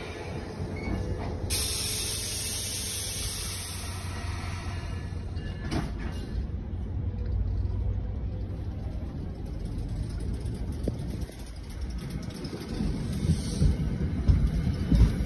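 NJ Transit passenger coaches rolling past along the platform: a steady low rumble of steel wheels on rail, with a single sharp click about six seconds in. The clanking of wheels over the rail joints grows louder and more uneven in the last few seconds.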